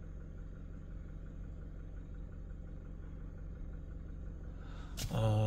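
Toyota Hilux's 2.4-litre four-cylinder turbodiesel idling steadily, heard from inside the cab as a low, even hum.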